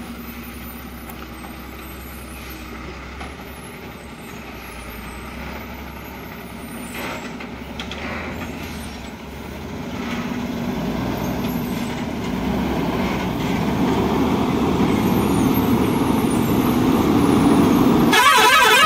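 Ashok Leyland truck's diesel engine running as the loaded truck works around a hairpin bend, getting steadily louder as it comes closer. Near the end a loud horn with a warbling tone starts.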